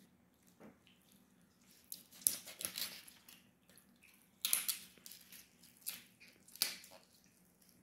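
Kitchen knife cutting up a raw young chicken on a wooden board: short wet, crunchy bursts as skin and joints are cut and pieces pulled apart, about two seconds in, again around four and a half seconds, then twice near the end.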